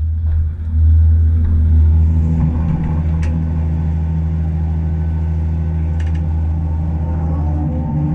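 Heavy diesel engine running at a steady pitch, slightly louder for a couple of seconds about a second in, with a few faint clicks.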